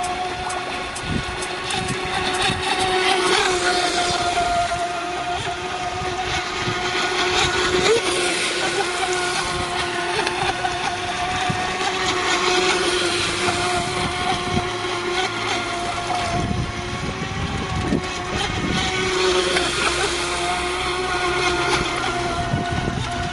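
Electric RC speedboat with a 1620 KV 36 mm brushless motor on a 4S battery, running at speed across the water: a steady, high motor whine that wavers slightly as the boat turns, with a hiss that swells several times.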